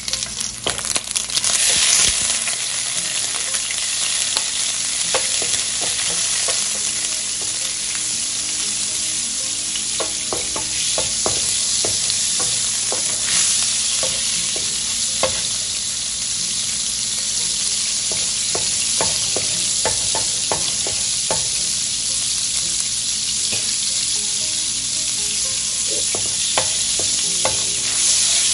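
Butter hitting hot olive oil in a nonstick frying pan and sizzling, starting suddenly and then holding steady as it melts. A wooden spatula stirring it makes light scrapes and taps against the pan, mostly in the middle stretch.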